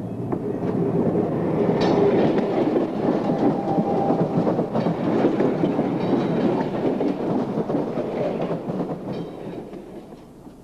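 Chicago, Aurora & Elgin interurban car 430, a 1927 Cincinnati Car Company heavyweight steel electric car, passing by with its wheels clattering over the rail joints. It grows louder to a peak about two seconds in, stays loud, then fades away near the end as it runs off.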